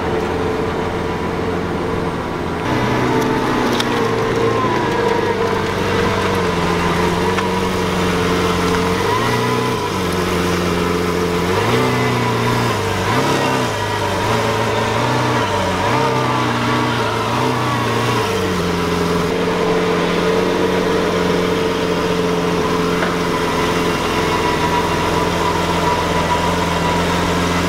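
Lamborghini Centenario Roadster's 6.5-litre V12 running at low revs while the car is manoeuvred at walking pace. Its pitch shifts up and down several times in the middle, then settles back to a steady idle.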